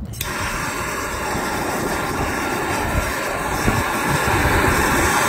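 Handheld plumbing gas torch burning with a steady rushing flame noise. It starts suddenly and grows slightly louder, heating a fluxed copper fitting for soldering.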